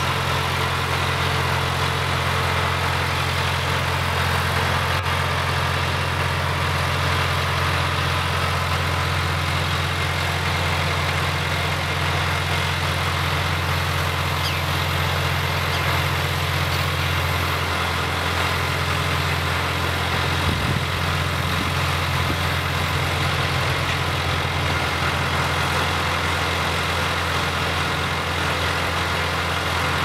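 Engine of a barge-mounted excavator pile-driving rig idling, a steady low hum with no hammer blows.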